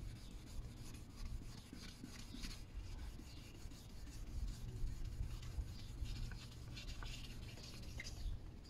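A gloved hand rubs the plastic headlight lens of a Subaru Impreza in faint, scratchy, irregular strokes, working the heat-hazed lens to restore its clarity.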